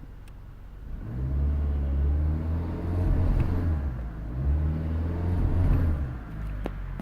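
2017 Chevy Cruze's turbocharged four-cylinder engine revved twice from idle, each rev rising and falling back, then settling toward idle.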